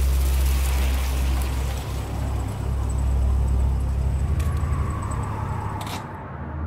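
Deep, steady rumbling drone with a hiss over it, and two sharp clicks near the end.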